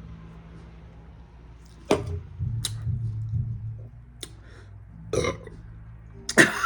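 A loud burp near the end, after a few short, sharp mouth smacks and clicks of eating.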